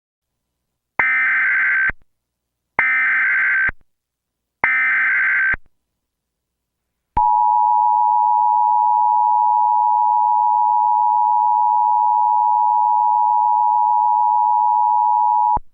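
Emergency Alert System header: three short bursts of SAME digital data screech about a second apart, then the steady two-tone EAS attention signal for about eight seconds. Together they mark the start of a new alert, here a tornado warning.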